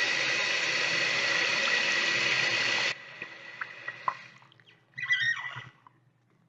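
Bathroom sink tap running steadily, then shut off abruptly about three seconds in. A few faint drips or ticks follow, then a short burst of sound about five seconds in.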